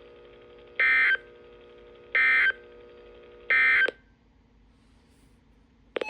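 NOAA Weather Radio SAME digital coding: three short, buzzy data bursts about a second apart, the end-of-message signal that closes a broadcast alert. They play over a steady low broadcast hum, which drops out after the third burst and leaves a faint hiss. A new electronic tone starts at the very end.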